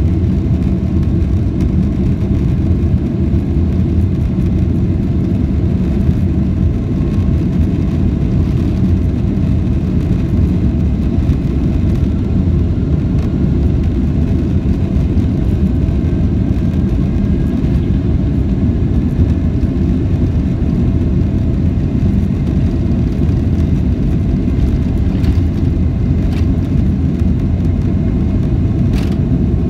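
Boeing 767-300ER jet engines at takeoff power, heard from inside the cabin over the wing: a steady, loud, low rumble with a faint whine that rises slowly in pitch partway through.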